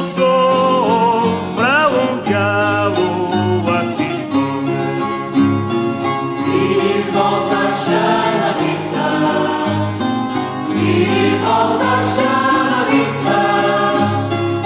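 Background music: a song with singing voices and guitar.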